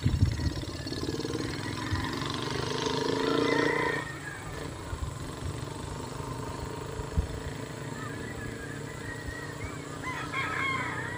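A rooster crowing, one long call that ends abruptly about four seconds in, followed near the end by short chirping bird calls.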